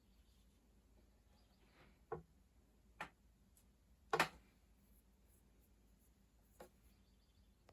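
A few light clicks and taps from handling, four in all, the loudest a quick double tap about four seconds in, against quiet room tone.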